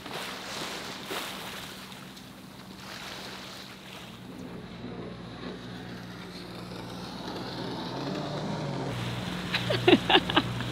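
Water and wind noise from a sailboat under way, over a steady low hum. Near the end comes a quick run of about five short, loud sounds.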